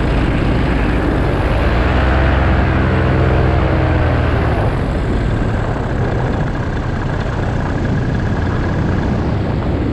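Paramotor engine and propeller running steadily in flight, its note rising and falling briefly a couple of seconds in.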